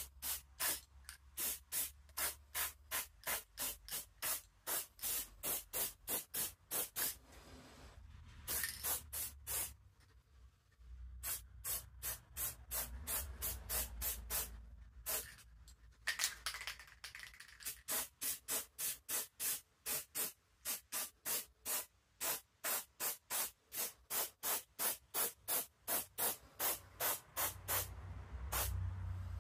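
Aerosol spray paint can in use: a quick, even run of short hissing strokes at about three to four a second, broken by a couple of longer hisses about a third and halfway through.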